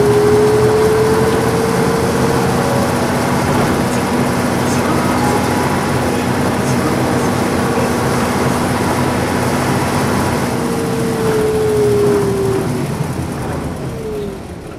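Nissan Diesel P-U33L city bus's diesel engine running under way, with a whine that rises slightly in pitch over the first few seconds. Another whine falls in pitch about three-quarters of the way through, and the engine sound eases near the end.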